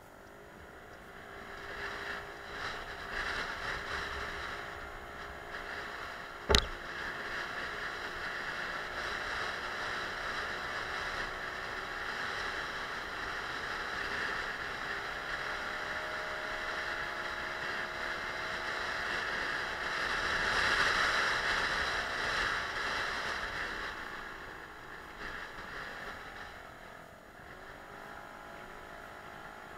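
Suzuki Let's 4 moped's small four-stroke engine running under way, rising in pitch as it picks up speed, then holding steady and easing off near the end, with wind and road noise. A single sharp knock about six and a half seconds in.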